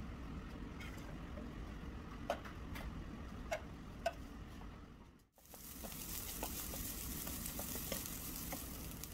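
Rice frying in hot oil in a wok, a steady sizzle, stirred with a wooden spatula that makes light scraping ticks. The first half is a low hum with a few sharp pops; after a brief drop about halfway, the sizzle comes in loud.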